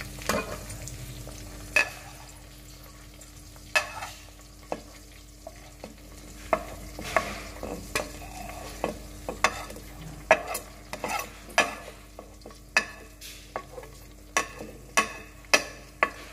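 Spoon clinking and scraping against a plate as ground spices are knocked off it into a pot, in sharp irregular clicks that come faster in the second half, over a low sizzle of onions and tomatoes frying in oil.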